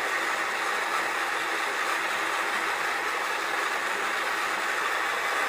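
Small electric motor of a mini pottery wheel running steadily, its wheel head spinning under a lump of clay.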